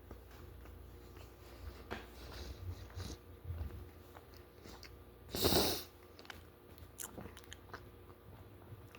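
Close-up chewing and biting of cold leftover food, with small wet clicks from the mouth. About halfway through there is one short, louder rush of noise.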